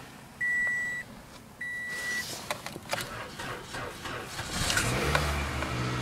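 Dashboard warning chime beeping steadily, about once a second. Then a 2005 Toyota Corolla CE's 1.8-litre four-cylinder is cranked on the starter on a cold start, catching about four and a half seconds in and settling into a fast, even cold idle.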